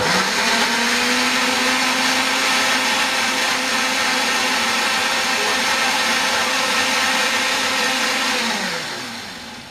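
Countertop blender running at speed, blending chunks of onion with garlic, ginger and water: a steady motor hum under a whirring grind, switched on suddenly at the start. About eight and a half seconds in it is switched off and the motor winds down with a falling hum.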